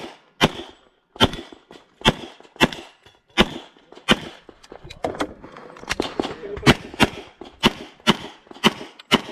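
HPS/STI 2011 pistol in .40 S&W firing a rapid string of shots, about one to two a second with brief gaps between pairs, each shot loud and sharp with a short echo.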